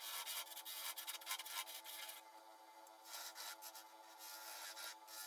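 A narrow lathe tool cutting into a spinning mallee burl and resin blank on a Laguna 1836 lathe: a hissing scrape for about the first two seconds, then again from about three seconds in. The lathe's steady hum runs underneath.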